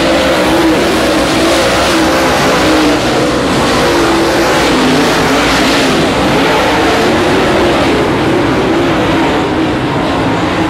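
Several dirt late model race cars' V8 engines running hard as the cars race around the dirt oval, their pitch rising and falling as they power through the turns and down the straights. Loud and continuous.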